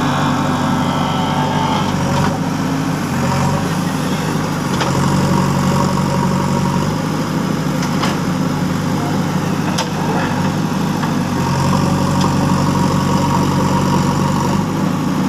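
Diesel engine of a JCB backhoe loader running steadily, its note shifting up and down a few times as the machine works.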